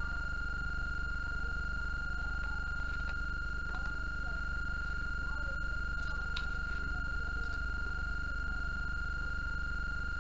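A steady high-pitched electronic whine holding one pitch over a low hum, with a few faint clicks about six seconds in.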